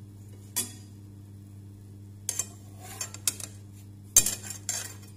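Spatula clinking and scraping against a frying pan as a pancake is lifted and turned: about six sharp clinks, the loudest about four seconds in, over a steady low hum.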